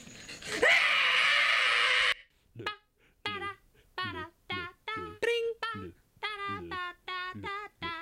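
A man's loud scream, starting about half a second in and cut off abruptly about two seconds in. After a short gap, the end-credits song begins: a solo voice singing short, separate notes in a steady rhythm.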